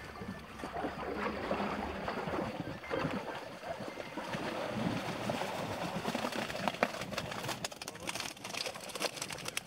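A wet keepnet being hauled out of the water, with water splashing and running off the mesh and the net rustling. Sharp clicks and knocks of handling come more often in the second half.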